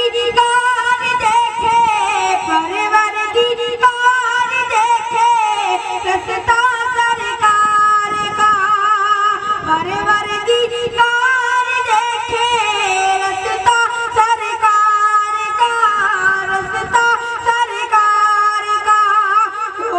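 A boy singing a naat into a microphone in a high voice, drawing out long melodic notes with vibrato and sliding between pitches.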